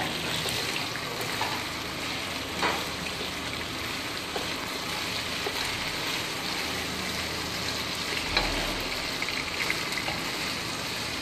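Chicken pieces sizzling as they fry and brown in their own rendered fat in a non-stick pan, stirred with a wooden spatula; a steady hiss with a couple of light knocks.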